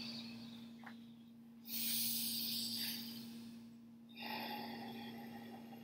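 Ocean tide breathing: slow, audible breaths with a rushing, airy sound like surf, one trailing off at the start, a louder one about two seconds in and another about four seconds in. A steady low hum runs underneath.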